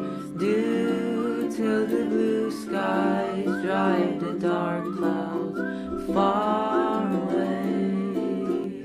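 Background song: plucked guitar or ukulele accompaniment with a wordless vocal line between the sung verses.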